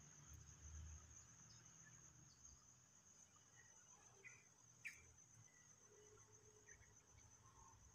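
Faint, steady high-pitched chorus of insects, crickets or similar, with a single sharp click about five seconds in.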